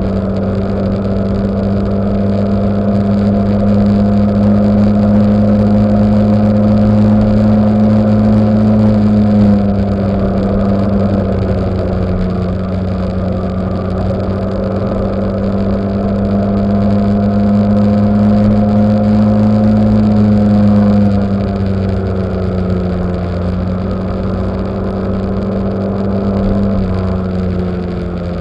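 SYM 600 maxi-scooter's engine running under way, its pitch slowly creeping up as the scooter gathers speed and then dropping back as the throttle eases, about nine seconds in, again about twenty-one seconds in and once more near the end. A steady rush of road and wind noise lies underneath.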